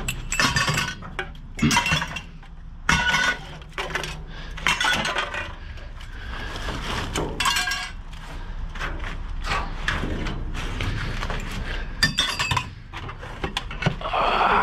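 Hands rummaging through scrap and trash in a dumpster: a run of irregular clinks, clatters and knocks as pieces of metal, glass and plastic are shifted and knocked together, some strikes ringing briefly.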